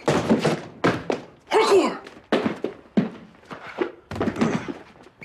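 A run of thuds and knocks, roughly one or two a second, with a short vocal cry about a second and a half in.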